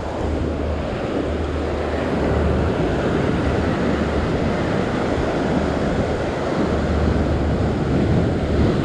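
Ocean surf washing and breaking against a rock ledge, with wind buffeting the microphone in gusts.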